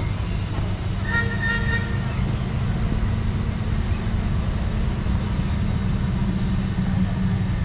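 A large vehicle's engine running steadily close by, with a brief horn toot about a second in.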